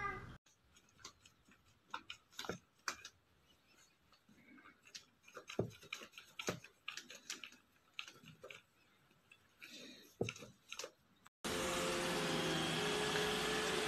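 A cat pawing and scrabbling among books and papers: scattered light taps, clicks and paper rustles. About eleven seconds in, a cut to a steady room hum with a faint steady tone.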